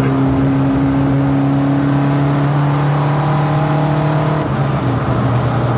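Race-prepared 1972 BMW 2002's four-cylinder engine pulling steadily under load while driving. It holds a steady note, rises a little, then drops slightly in pitch about four and a half seconds in.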